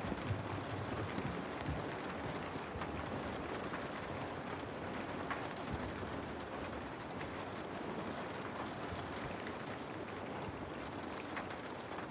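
Steady rain falling, with scattered individual drops ticking against a window pane.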